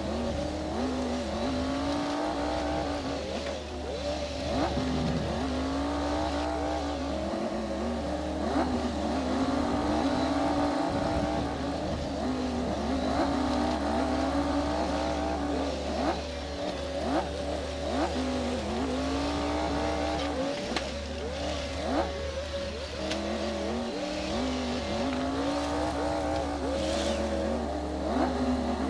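Komatsu D60P bulldozer's diesel engine working under load, its pitch dipping and recovering about every two seconds, with scattered clanks.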